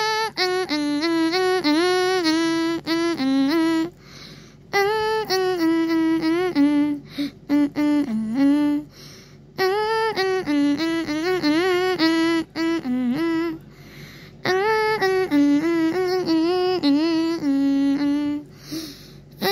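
A high voice humming a wordless tune in four phrases, each about four seconds long, with short pauses between them.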